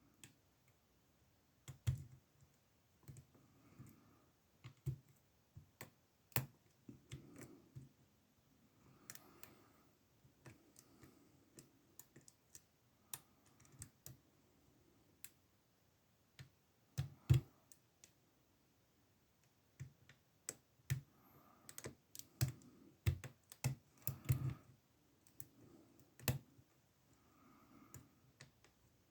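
Faint, irregular metallic clicks and taps of a lock pick and tension wrench working the pins of a SIL 30 mm padlock, with a few sharper clicks among them.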